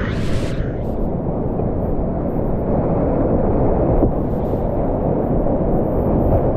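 Whitewater rapids rushing loudly and steadily around a kayak, sounding muffled, with a brighter splash of water at the start.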